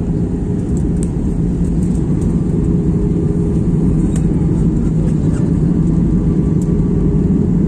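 Steady low rumble of an Airbus A320 passenger jet's engines and airflow, heard inside the cabin during descent.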